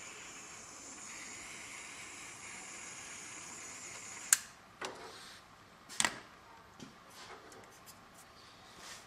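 Small handheld butane heat tool hissing steadily while shrinking heat-shrink tubing over a wire joint. About four seconds in the hiss stops with a sharp click, followed by a few clicks and light knocks as the tool is handled and set down.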